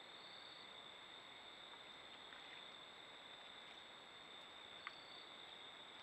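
Near silence: a faint even hiss with a steady thin high-pitched whine, and one faint tick about five seconds in.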